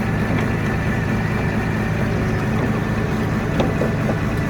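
A heavy machine's engine idling steadily, with a faint click or two about three and a half seconds in.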